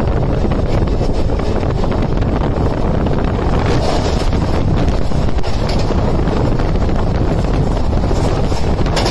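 Loud, steady rush of wind on the microphone mixed with the running noise of a passenger train at speed, heard at an open coach doorway while a parallel train passes close alongside.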